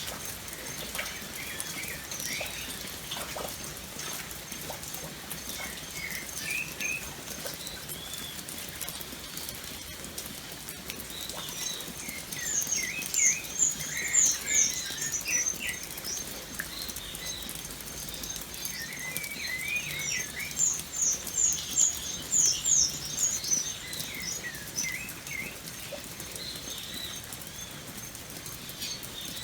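Steady rain pattering, with birds calling over it: scattered chirps throughout, and two loud runs of quick, high repeated notes, about twelve seconds in and again about twenty seconds in.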